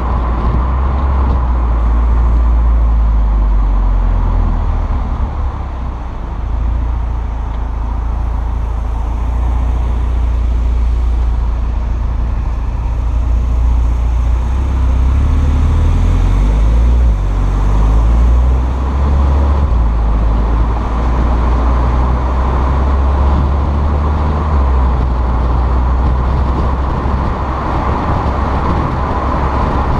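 Volkswagen GTI on a Stage 2 tune with a turbo-back exhaust, driving: its turbocharged four-cylinder gives a loud, steady low exhaust drone that steps up and down in pitch several times as speed and gears change. There is a brief dip in level about six seconds in.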